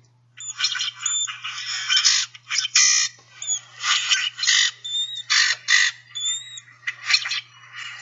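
A flock of common grackles calling together: many overlapping squeaky, grating calls with a few short rising squeaks.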